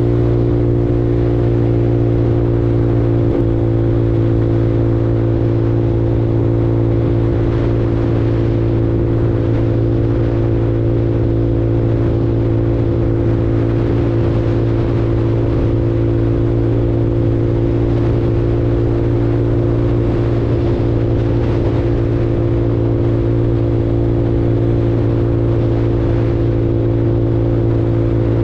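150cc Super Hornet automatic motorcycle's engine running at a steady cruising speed, its drone holding one unchanging pitch, with road and wind noise underneath.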